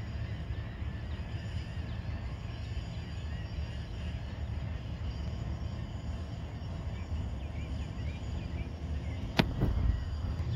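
Many faint, short bird chirps over a steady low outdoor rumble, with a sharp click about nine seconds in.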